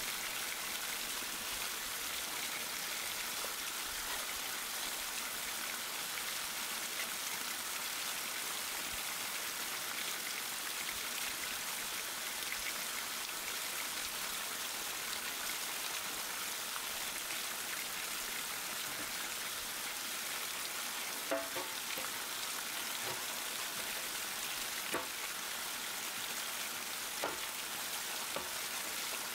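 A steady, even hiss of outdoor water-like noise, with a handful of short light clicks and taps in the last third as the mini generator's metal housing and copper-wound stator are handled.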